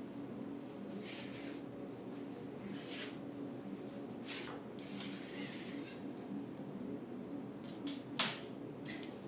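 A few brief light rustles and one sharp click about eight seconds in, over a steady low hum.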